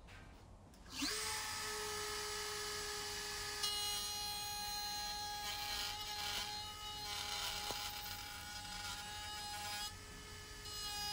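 Table-mounted router switched on about a second in, spinning up in a rising whine to a steady high pitch. From about three and a half seconds the bit cuts into the edge of a plywood board, adding a harsher, uneven cutting noise as the board is fed along, which eases briefly near the end.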